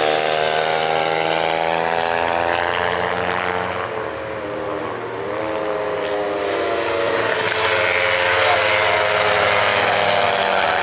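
Kawasaki 300-class race motorcycles at high revs on the circuit. Their engine note sags and wavers about halfway through as they slow for the bends, then climbs again as they accelerate away.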